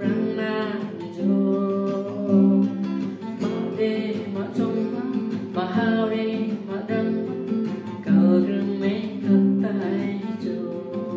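A man singing in Garo, accompanying himself on a strummed acoustic guitar, his voice coming in sung phrases over steady chords.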